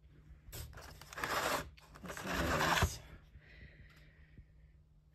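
Handling noise as the camera is moved and set down: two bursts of scraping and rubbing, each about a second long, the second ending in a sharp knock.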